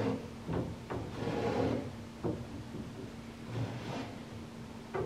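Light wooden knocks and a short rubbing scrape of wood on wood, about a second in, as a thin wooden batten is pressed down and shifted along the tops of timber deck beams.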